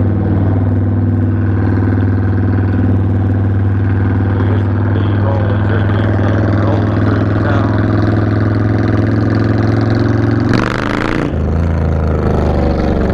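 Motorcycle engine running at a steady speed. About ten and a half seconds in there is a brief rush of noise, and the engine note shifts after it.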